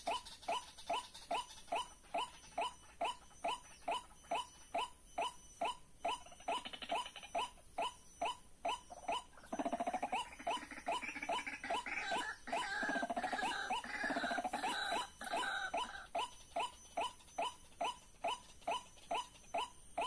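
White-breasted waterhen calls played as a trapping lure: a steady, very regular series of short pitched notes, about two and a half a second. From about ten to sixteen seconds in, a louder, more tangled stretch of calling overlaps the series.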